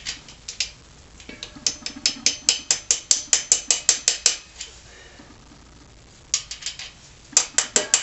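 Quick runs of light metallic taps, about five or six a second, with a short ringing after each: a socket being tapped to drive a new shift shaft seal into the engine case. The taps come in two bursts, with a pause in the middle.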